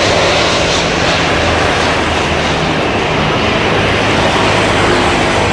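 Loud, steady jet noise from the twin engines of a China Airlines Airbus A350 as the airliner touches down and rolls out along the runway.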